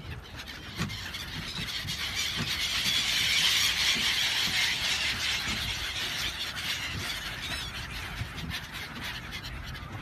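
A large flock of gulls calling all at once, a dense din of overlapping squealing cries that swells to its loudest a few seconds in and then eases a little.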